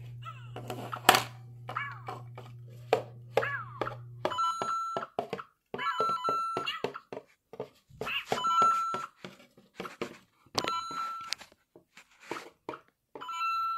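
Interactive Lego Mario figure in its Cat Mario suit playing short electronic beeps and chirps from its built-in speaker, including several short held tones, with clicks and taps of the plastic figure being handled. A low hum stops about four seconds in.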